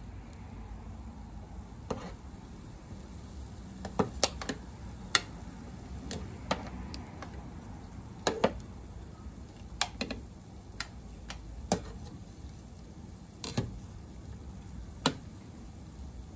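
Metal kitchen tongs clicking and clinking against a steel pot and a ceramic plate as boiled okra pods are lifted out of the water: about a dozen sharp, separate clicks over a steady low hum.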